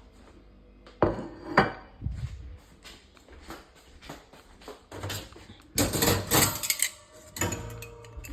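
Dishes and kitchen utensils being handled and set down. There are two sharp knocks about a second in, then a longer run of clattering and clinking near the end.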